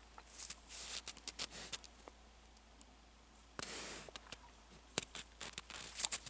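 Wild boar nosing and stepping in snow close by: a run of small crunches and clicks, with short hissing bursts about half a second in, near four seconds and near the end.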